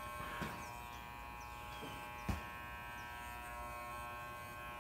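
Electric hair clippers running with a steady buzz while a head is shaved, with a sharp click a little over two seconds in.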